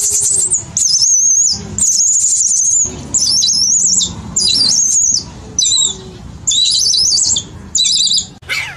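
Baby macaque screaming over and over: a run of about eight shrill, wavering screams, each up to a second long with short breaks between.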